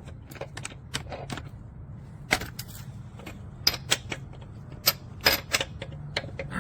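Irregular metallic clicks and clinks of tools and lug nuts being handled, with a few sharper knocks in the middle, over a steady low hum.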